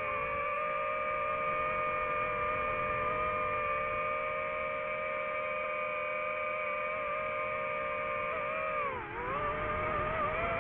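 Quadcopter drone's motors and propellers whining steadily, several close tones together. About nine seconds in the pitch dips briefly and climbs back as the throttle changes.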